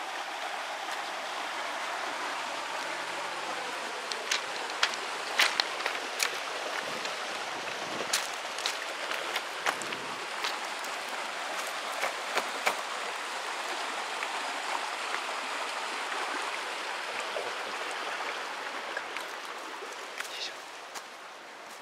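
River water running steadily, with scattered sharp clicks in the middle stretch; the water sound eases a little near the end.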